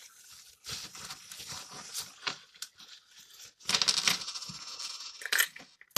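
Small copper coins (1p and 2p pennies) clinking as they are dropped into a plastic Kinder Egg capsule: scattered clicks, with a dense burst of coins clattering together about four seconds in.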